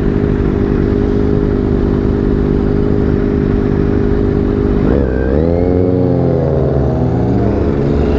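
Motorcycle engines: a steady running note, then from about five seconds in the engine pitch rises and falls repeatedly as the bikes are revved and accelerated.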